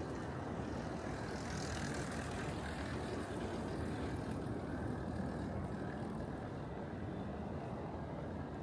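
A road vehicle running steadily with a low rumble, with a brief high hiss from about a second and a half in to about four seconds.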